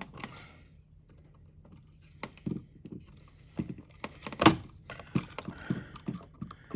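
Irregular small clicks and taps of a tool and wire against a plastic wall switch as a wire is worked free from its push-in (backstab) terminal, with one louder click a little past halfway.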